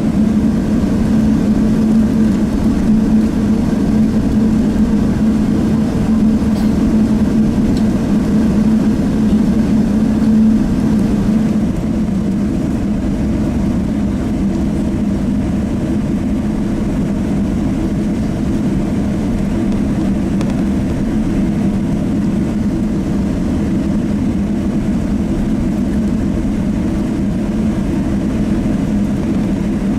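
Steady cabin noise inside a Boeing 777-300, heard from a window seat: the engines and airframe make a loud, even rumble with a strong low hum. The level eases slightly about twelve seconds in.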